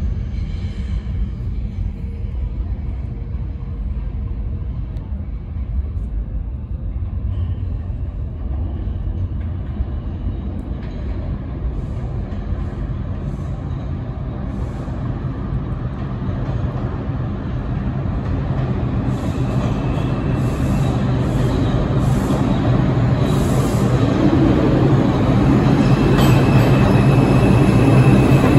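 New York City Subway 2 train approaching through the tunnel and pulling into an underground station. A low rumble builds steadily louder through the second half, with high-pitched wheel squeal joining in over the last third.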